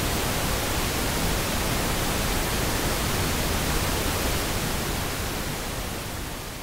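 Pink noise: a loud, steady hiss that begins fading out about five seconds in.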